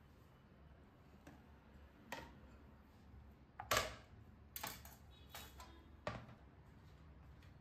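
Kitchen utensils and a plastic cutting board being picked up and set down on the counter: about six separate light knocks and clatters, the loudest a little under four seconds in, over a faint low hum.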